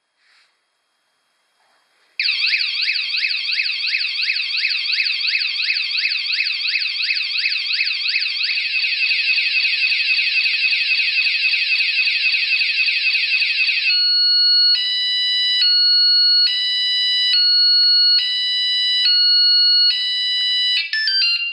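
Mengshen wireless anti-theft bike alarm, rated 113 dB, sounding its electronic siren about two seconds in. It starts as a fast warbling wail of about four sweeps a second. A little past the middle it switches to an alternating stepped two-tone pattern that changes about once a second, then ends in a quick flurry of chirps and cuts off suddenly.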